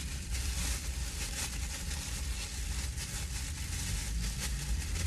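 Thin plastic bag crinkling in the hands as a lemon wedge is squeezed through it, over a steady low rumble.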